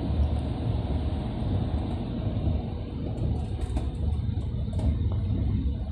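Steady low rumble of a passenger train coach running along the track, heard from inside the coach, with a few faint clicks about halfway through.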